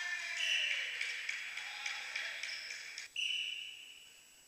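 Echoing sports-hall court noise as a volleyball rally ends: a jumble of short squeaks and knocks. Just after three seconds in comes one steady high whistle blast of about a second, the referee's whistle.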